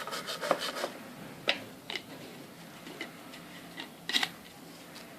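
Metal tweezer tips scraping and clicking inside a motherboard RAM slot while cleaning its contacts: a scattering of light ticks, with a few sharper clicks about a second and a half, two seconds and four seconds in.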